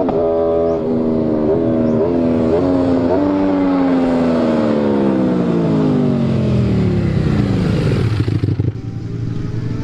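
Superbike exhaust note as the bike rides past: several quick jumps in engine pitch over the first three seconds, then a long falling pitch, then a quieter, lower note near the end.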